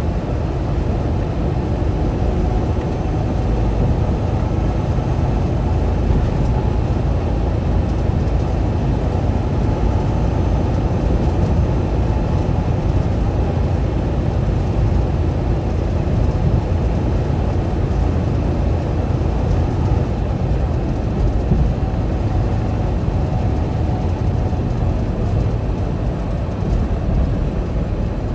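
Semi-truck driving: a steady drone of engine and road noise with nothing standing out.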